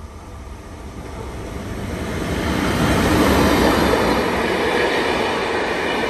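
An SBB Re 4/4 electric locomotive hauling a train of passenger coaches passes close by. The running noise of wheels on rails grows louder as it approaches, is loudest about three to four seconds in as the locomotive goes past, and stays loud as the coaches roll by.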